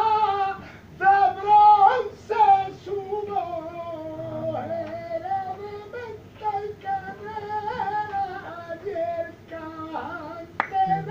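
A male flamenco singer (cantaor) singing long, wavering, ornamented phrases in a high, strained voice. A single sharp click sounds near the end.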